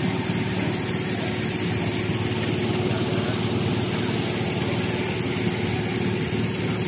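A small engine idling steadily, with an even, fast pulsing drone.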